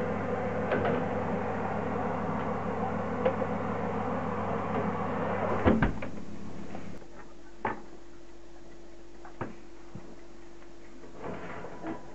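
Hot-air fan oven running with a steady hum while a metal baking tray is pushed into it, then a clatter of the tray and the oven door being shut about six seconds in. The hum drops away after that, leaving a few light knocks and clicks.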